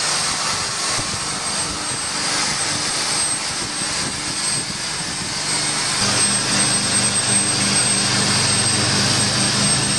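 Steady loud machinery noise: a hiss over a low drone, with the low hum growing stronger about six seconds in.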